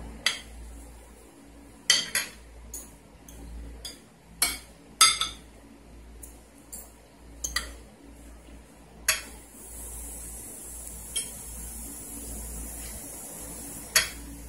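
Plates and eating utensils clinking and knocking now and then during a meal at the table, about fifteen sharp, irregular clinks. A steady high hiss sets in about nine seconds in.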